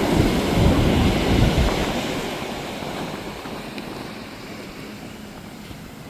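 Small bay waves washing onto the beach, with wind buffeting the microphone. Both are loudest in the first second or two, then ease off.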